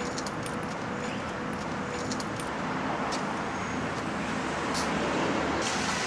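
Steady mechanical background noise with a faint hum in the first two seconds and a few light clicks scattered through it.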